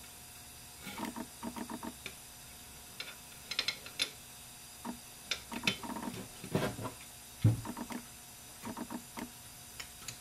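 Small metal parts clicking and tapping as a spring and valve are pushed by hand into a transmission valve body, in scattered little clusters, with one duller knock about seven and a half seconds in.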